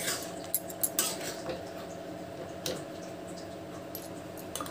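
Steel spoon clinking and scraping against a steel kadai while stirring a thick curry. A few sharp clinks come in the first second and a couple more later, over a steady low hum.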